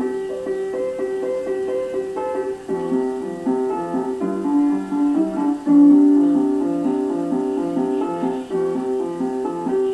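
Solo piano piece being played: a melody of separate notes over a lower accompaniment, each note struck and fading.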